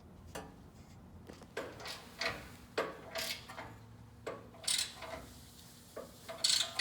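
Hand tools working the bolts of a chrome steel truck bumper: a string of short metallic clinks and scrapes, irregular, about one or two a second.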